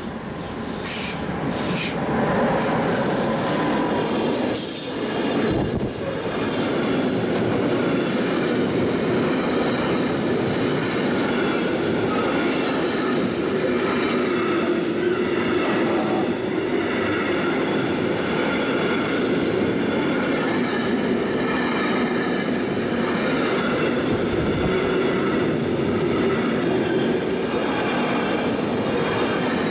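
A DB class 185 electric locomotive passing close by at the head of an intermodal freight train, the sound swelling over the first couple of seconds as it goes past. Then the long string of loaded flat wagons rolls by in a steady, dense rumble of wheels on rails, with faint wavering wheel squeal above it.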